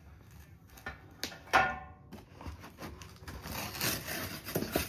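Sheet-steel cabinet parts and packing being handled out of a cardboard box: two knocks a little over a second in, the second ringing briefly, then rustling and shuffling.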